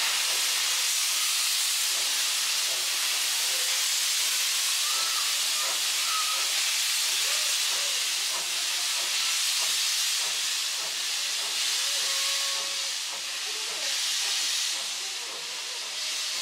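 Steam locomotive C57 180 venting steam low at its front with a loud, steady hiss that starts suddenly.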